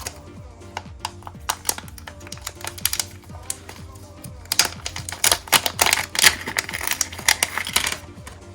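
Rapid clicking and light clatter from small objects being handled, thickening to a dense flurry about halfway through, over background music.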